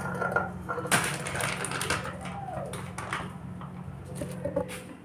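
Kitchen handling noise: a steel mixing bowl being moved and scraped on the counter, with a rustle about a second in and scattered light clicks and clinks.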